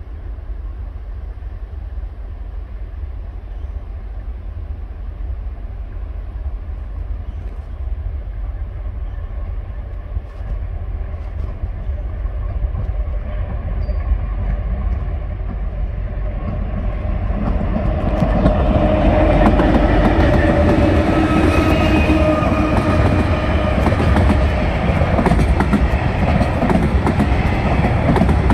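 TasRail DQ class diesel locomotive hauling a container freight train, growing steadily louder as it approaches and loudest from about two-thirds of the way through as it passes; the wagons' wheels then click over the rails.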